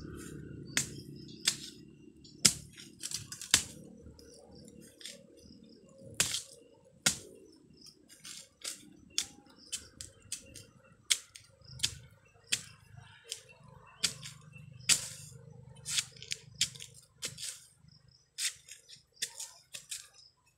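Bolo knife hacking at the base of a bamboo shoot: repeated sharp chops and cracks at an irregular pace, with dry bamboo litter crackling.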